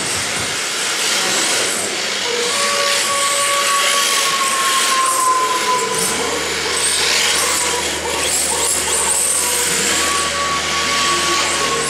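Radio-controlled rear-wheel-drive drift cars sliding around the track. A steady hiss of tyres scrubbing sideways on the surface runs under a high motor whine that comes and goes and dips in pitch.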